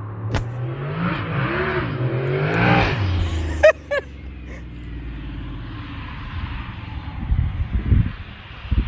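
Mitsubishi Lancer Evolution IX's turbocharged 4G63 four-cylinder engine revving up and down twice, then two short high chirps about four seconds in. The engine then settles into a lower, steady drone, with a few low thumps near the end.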